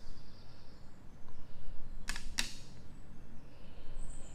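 Two sharp plastic knocks, about a third of a second apart, as a Perfin rechargeable milk frother is set down on a plastic pocket digital scale.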